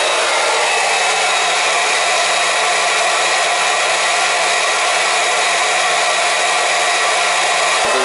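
Small electric transfer pump running steadily, a constant motor hum with a hiss of flow, as it pumps glycol antifreeze from a bucket through hoses into a hydronic heating system to fill it.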